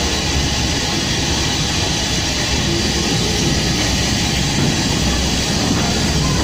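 Steam train running, heard from an open passenger wagon: a steady, loud rumble and rattle of the wheels and the locomotive, passing through a short stone tunnel.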